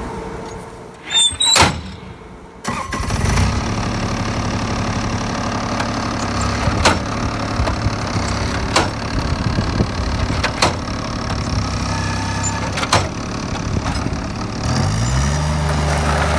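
Bobcat skid-steer loader's engine running steadily as it skims compacted gravel, coming in about three seconds in, with sharp metallic clanks every couple of seconds and the engine revving up near the end.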